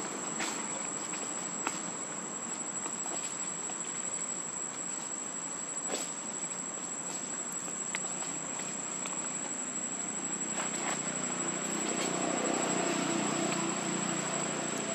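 Steady high-pitched insect drone, with a few light clicks scattered through it and a low hum swelling near the end.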